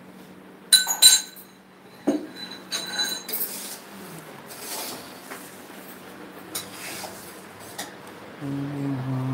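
Steel kitchen utensils clinking against pots and pans at a stove: a few sharp ringing clinks about a second in, then lighter clinks over the next couple of seconds. A low hum comes in near the end.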